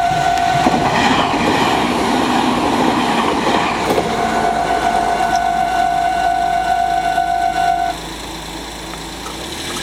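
Japanese level-crossing alarm ringing steadily while a Meitetsu Nagoya Main Line train passes over the crossing; the train's rumble fades after about four seconds. The alarm cuts off suddenly about eight seconds in, leaving a quieter background.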